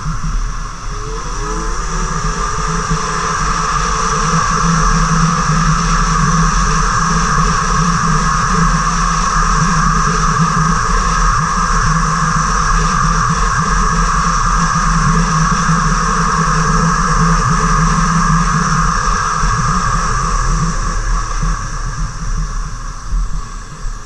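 Yamaha snowmobile running at speed over snow. The engine drone climbs over the first few seconds, holds steady, then eases off near the end.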